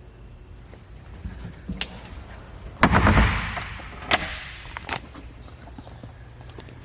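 A storage hatch lid on the fiberglass deck boat being handled: a few sharp clicks and one loud bang about three seconds in as a lid is shut.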